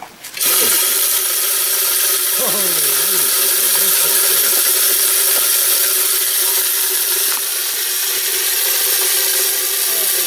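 Automatic game feeder's electric spinner motor starting abruptly about half a second in and running steadily on a timed test, a steady hum over a hiss of grain flung from the spinner plate.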